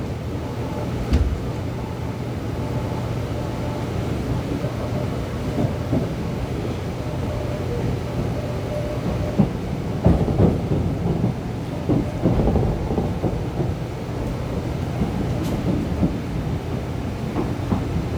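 Train running along the track: a steady low rumble, with a run of wheel clacks over rail joints about ten to thirteen seconds in.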